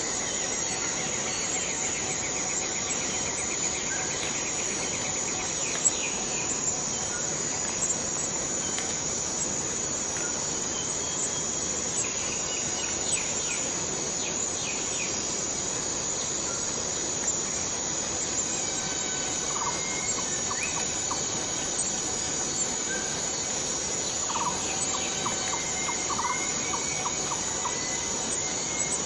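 Forest cicadas making a steady, high-pitched drone, with short bird calls and chirps here and there over it.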